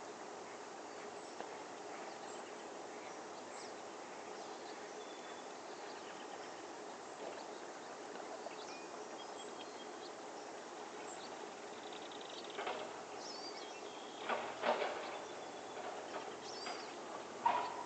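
Outdoor lakeside ambience, a steady background hiss with small bird chirps scattered through it. In the last few seconds come several louder, harsher bird calls, the loudest near the end.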